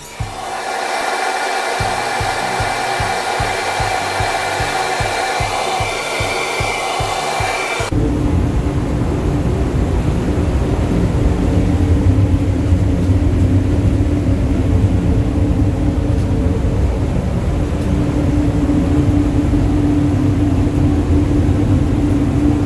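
Background music with a steady beat for the first several seconds. It cuts abruptly to the steady rushing noise and low hum of a paint spray booth's extraction fan.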